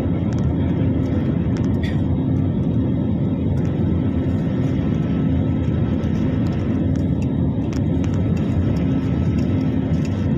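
Steady in-flight cabin noise of a passenger jet: engines and rushing air heard from inside the cabin, with a low, constant hum.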